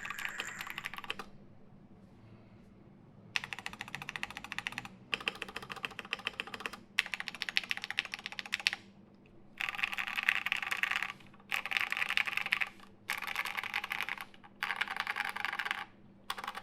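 Typing on a custom MC-76k "Fatboy" mechanical keyboard with an aluminium plate, lubed Gateron Black KS-3 linear switches and MT3 Susuwatari keycaps. Rapid keystrokes come in bursts of a second or two, with short pauses between them and a longer pause about a second in.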